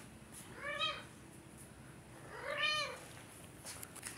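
Sphynx cat meowing twice, the second meow longer and louder than the first; each call rises and then falls in pitch.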